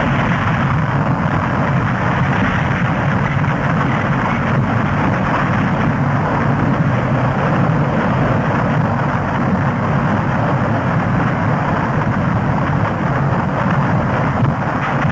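Loud, steady rumble of a rockslide, rocks and earth crashing down a hillside, with no break over the whole stretch.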